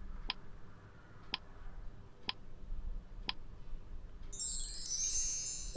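Quiz countdown-timer sound effect ticking four times, about once a second, then a bright, high chime-like effect about four seconds in as the answer is revealed.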